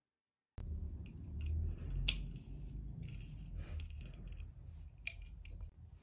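Aluminium beer can being cracked open by its pull tab: a few sharp clicks with a loud snap about two seconds in, then the beer fizzing, over low handling rumble.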